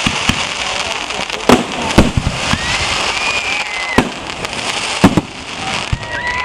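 Aerial fireworks shells bursting: about seven sharp bangs, the loudest about two and five seconds in, over continuous crackling from the bursts. A high held whistle sounds through the middle.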